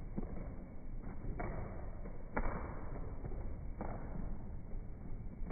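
Ceiling fan spinning, a steady low rumble broken by four sharp clicks or knocks at uneven intervals, the loudest about halfway through.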